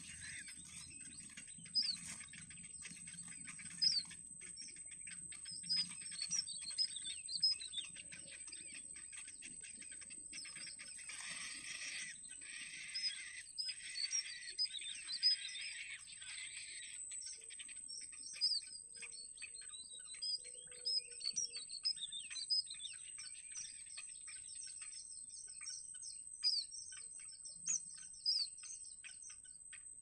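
Yellow bittern nestlings begging: many short, high-pitched chirps repeated throughout as the parent feeds them, with a stretch of rustling through the middle.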